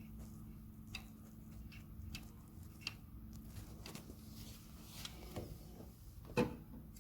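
Scattered light clicks and taps of parts and tools being handled during an engine teardown, with one louder knock near the end, over a steady low hum.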